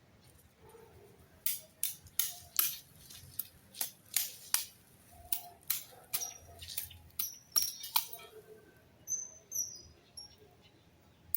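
An irregular series of sharp clicks and snaps, about a dozen or more, unevenly spaced. A few faint high chirps come near the end.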